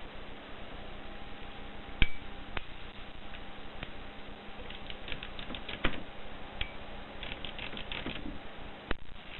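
Mercedes Selecta typewriter being typed on: a loud clack with a short ring about two seconds in, then quick runs of key strikes from about five seconds in and again near the end.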